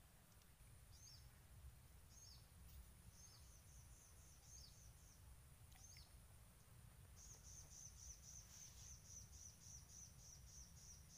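Faint bird chirps: scattered short high notes, then from about seven seconds in a quick run of repeated chirps, about four a second. Under them is a steady low rumble.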